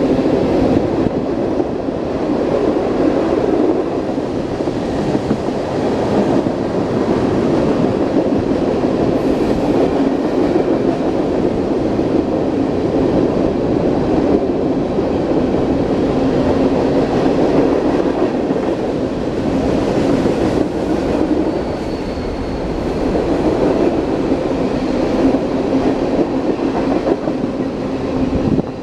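Train cars rolling past on the rails, a steady, even rolling noise throughout with a faint steady tone in it.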